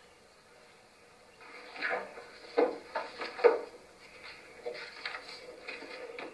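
Papers being leafed through and handled on a wooden desk, with rustling and a few sharp knocks about half a second apart near the middle, heard through a television speaker.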